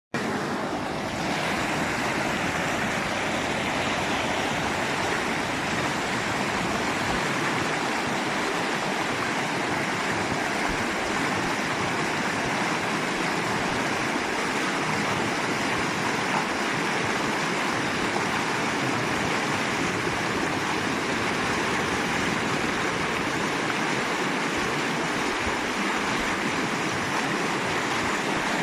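Steady rush of running water, an even unbroken roar.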